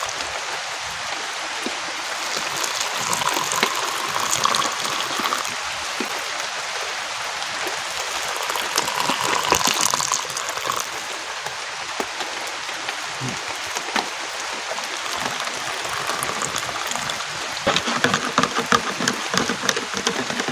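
Heavy rain falling steadily, a dense hiss full of small drop ticks. A run of sharper clicks comes near the end.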